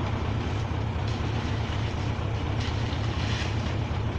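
Hino FS Ranger concrete mixer truck's diesel engine running steadily with a low, even throb.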